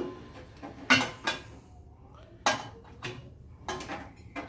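Metal turbo-kit parts clinking and clanking as they are handled and offered up to the engine: several sharp, irregular metallic knocks.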